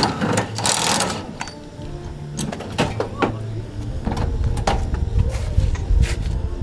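Cordless impact wrench on a race car's wheel, two short bursts at the start, then metallic clicks and knocks as the wheel is handled.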